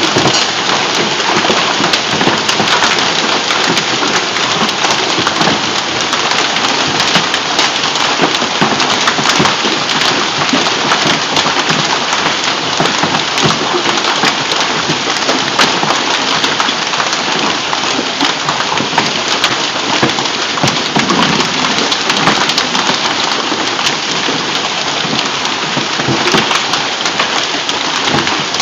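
Hailstorm: hailstones and rain pelting down on the ground and roofs, a steady dense hiss peppered with many small sharp hits.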